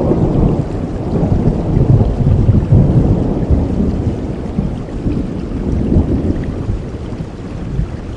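A long roll of thunder rumbling over steady rain, swelling over the first few seconds and fading away toward the end.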